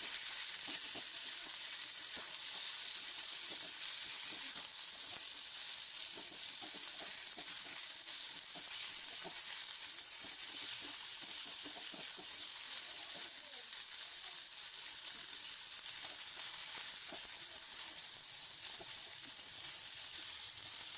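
Green chillies with karpooravalli (Cuban oregano), coriander and curry leaves sautéing in hot gingelly (sesame) oil in a pan: a steady sizzle with small crackles.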